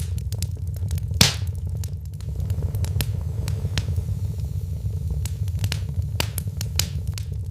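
Wood fire in a fireplace crackling, with scattered sharp snaps and one louder pop about a second in, over a steady low rumble.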